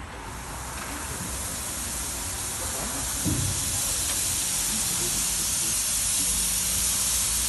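Steady hiss of escaping steam from a miniature steam locomotive, growing louder over the first few seconds. A brief low thud about three seconds in.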